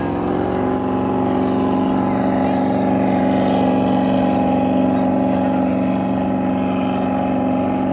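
Straight-piped jet boat engine running at steady high revs on a flyby. Its pitch steps up slightly at the start, then holds level.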